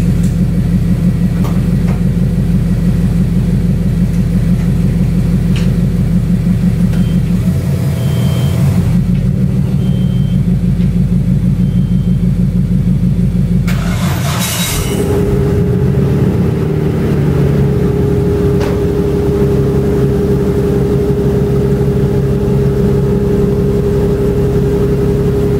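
Nissan Skyline R32 GT-R's twin-turbo straight-six is cranked at length on a jump start in sub-zero cold. It catches about fourteen seconds in with a brief surge, then settles into a steady fast idle.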